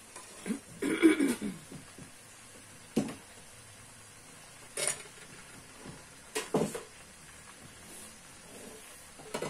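A few separate sharp metal knocks and clinks of a wire spider strainer and pots over a low hiss, as fried eggplant is tipped out of the strainer. About a second in there is a short cough-like sound, the loudest moment.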